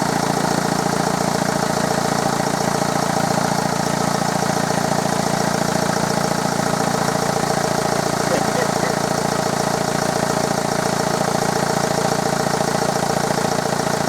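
Audi A6 1.9 TDI four-cylinder diesel engine idling steadily while warming up, running on its freshly repaired and refitted injection pump.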